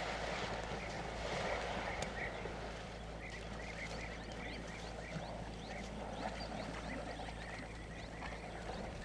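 Waterhole ambience: many quick, high bird chirps and twitters over a steady low hum.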